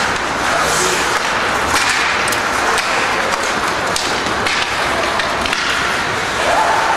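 Ice hockey play on an arena rink: a steady scraping hiss of skate blades on the ice with several sharp knocks of sticks and puck, and a few shouts near the end.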